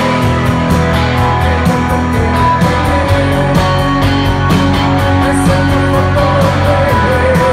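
Rock band playing a song: guitars over a steady drum beat.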